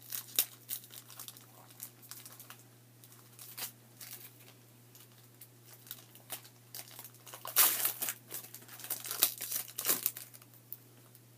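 Wrapper of a small pack of trading cards crinkling as it is handled and torn open: a run of irregular crackles, loudest about seven and a half seconds in and again around nine to ten seconds.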